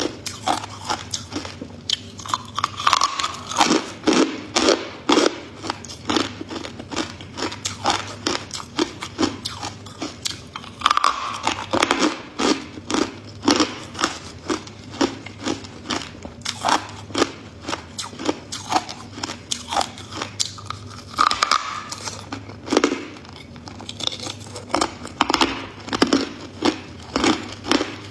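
Ice crunching between a person's teeth: bite after bite of hard ice being chewed, sharp crunches several times a second with short pauses between runs.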